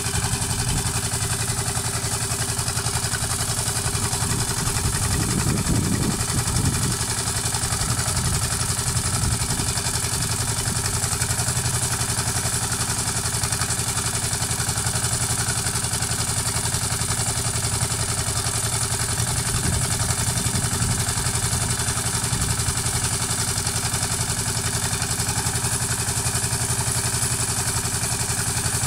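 Engine of a two-wheel walking tractor with a reaper attachment, running steadily at idle, with a couple of brief low swells in the rumble, about five seconds in and again around twenty seconds.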